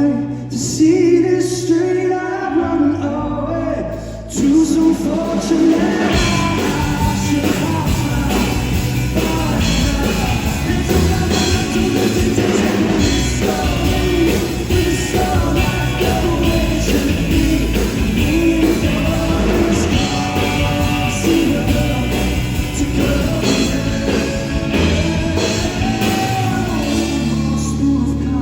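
Live rock music: singing over a full band. There is a brief drop about four seconds in, then the band comes back in full.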